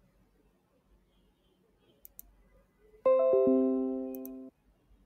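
A computer notification chime: three bright notes sound in quick succession about three seconds in, ring together for about a second and a half, then cut off sharply. It is the alert for a desktop pop-up notification. A couple of faint mouse clicks come before and after it.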